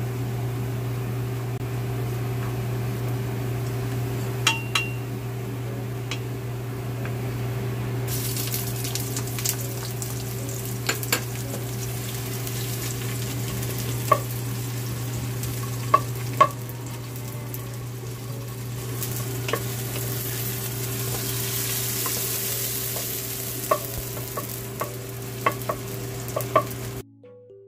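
Garlic and onion sizzling in hot oil in a pot, stirred with a wooden spatula that knocks against the pot now and then, over the steady hum of a kitchen fan. The sizzle grows louder about eight seconds in, and everything cuts off just before the end.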